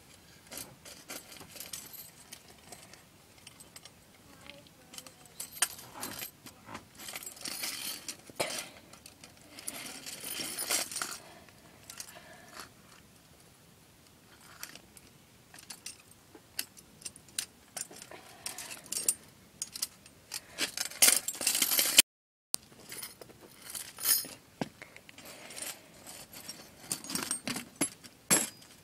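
Rusty steel 110 Conibear body-grip trap being handled and set by hand: irregular metallic clinks, rattles and scrapes of its jaws and spring, busiest and loudest about twenty seconds in.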